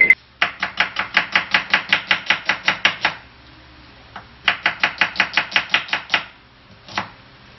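Kitchen knife chopping a red onion on a wooden cutting board. There are two runs of quick, even chops, about six a second, with a short pause between them and one last chop near the end.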